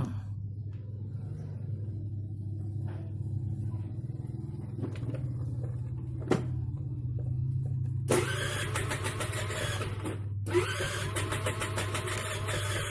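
Honda Vario scooter's electric starter cranking in two attempts of about two seconds each, the engine not catching. The starter is too weak to turn the engine over.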